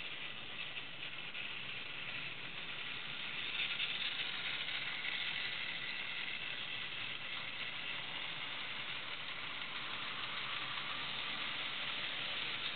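Hornby Dublo 3-rail model freight train running over tinplate track and points: a steady rattling whirr of the loco's motor and the wagons' wheels on the rails, loudest about four seconds in as the train passes close.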